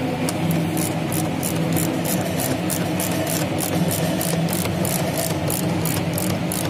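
Hand ratchet clicking about four times a second as it runs in the screws of a plastic air filter housing cover, over a steady low hum.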